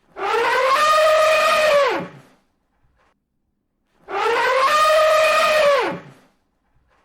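Elephant trumpeting: the same call twice, each about two seconds long, rising in pitch, holding, then dropping off sharply at the end. The two calls are identical, as in a looped recording.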